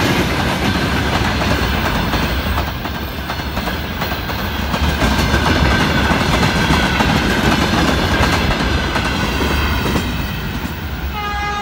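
Freight wagons rolling past close by: a steady rumble with the clickety-clack of wheels over rail joints. Near the end a train horn starts to sound, a steady pitched blast from the approaching passenger train.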